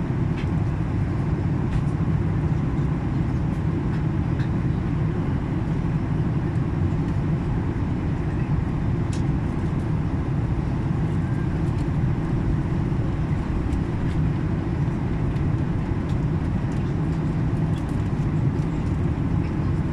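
Steady low drone of engine and airflow noise inside an airliner's passenger cabin during its descent to landing.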